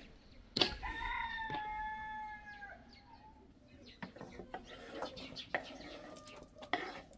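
A rooster crows once, a single long call of about two and a half seconds starting just under a second in. In the second half come scattered knife taps and scrapes as chopped green peppers are scraped off a wooden cutting board into a metal pan.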